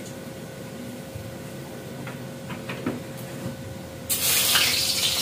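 Tempeh slices dropped into hot oil in a wok, setting off a loud frying sizzle that starts suddenly about four seconds in. Before that, only a few faint clinks.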